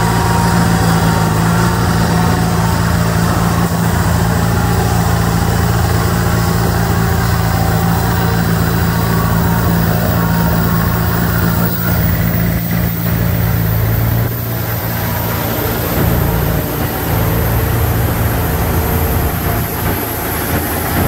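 Tuned Mitsubishi Lancer on an all-wheel-drive chassis dynamometer during the coast-down losses test after a power run: the car's engine and the dyno's spinning rollers make a steady low drone while the rollers slow down. The drone eases slightly about two-thirds of the way through.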